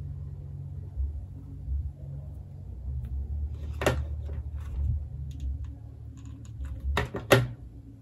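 A small hot glue gun knocking on a tabletop as it is picked up and set down: one sharp knock about four seconds in and two more in quick succession near the end, with faint handling ticks, over a steady low hum.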